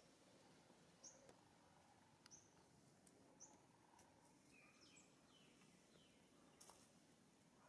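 Near silence: faint outdoor ambience with short, high bird chirps about once a second in the first half and a few faint falling calls midway.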